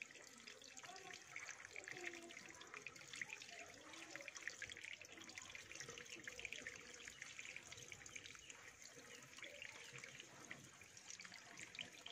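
Faint trickling water, a steady patter of small drips and splashes.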